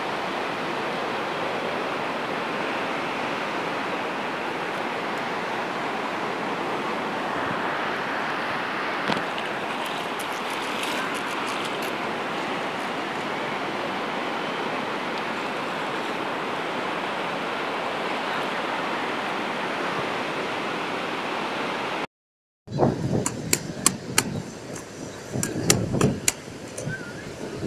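Steady rush of surf washing onto the beach, with a few faint clicks about ten seconds in. Near the end it breaks off abruptly and gives way to sharp, irregular smacks of boxing gloves hitting focus mitts.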